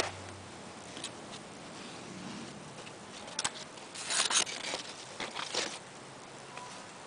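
Short scratchy rustles of cherimoya leaves brushing against the camera as it moves through the foliage, several in a cluster about four seconds in, over a steady faint hiss.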